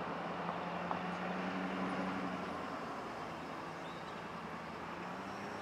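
Road traffic: a tow truck and cars driving by, engines running and tyres on the road, with a low engine hum that is loudest about two seconds in and then fades a little.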